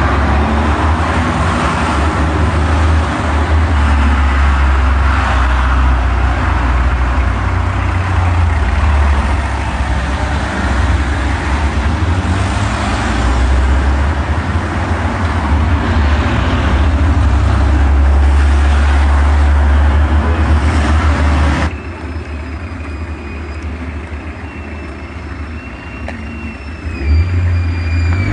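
Road traffic: cars and vans driving past one after another, each swelling and fading, over a heavy low rumble. About 22 s in the sound cuts abruptly to a quieter, duller background with faint thin whistling tones, and it gets loud again near the end.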